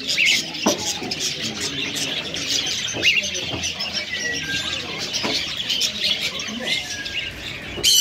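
Many small caged birds chirping and twittering together in a dense, continuous chorus, with a few short whistled notes and an occasional light knock.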